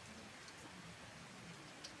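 A downpour of rain, faint and steady, with a few separate drop ticks.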